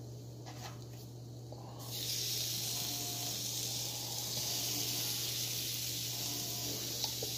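Raw seasoned chicken breasts sizzling on the hot ribbed plate of an electric indoor grill: a steady hiss that starts about two seconds in as the pieces are laid down, with a few light clicks and a low steady hum underneath.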